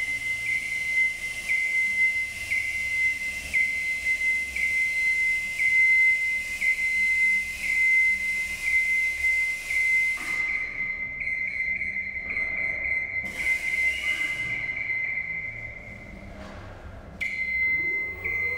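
Genie GS-2632 electric scissor lift lowering its platform, its descent alarm sounding one high steady tone that swells about once a second, then holds more evenly, with a short break near the end.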